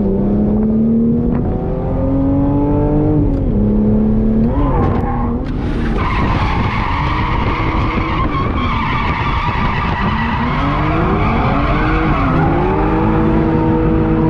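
Drift car engine running at high revs, its pitch dipping and climbing several times. Tyres squeal and skid through a long slide for several seconds in the middle, before the engine climbs back to a steady high rev.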